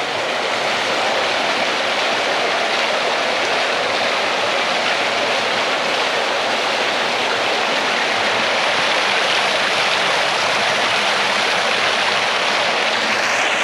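Steady, unbroken rush of falling creek water.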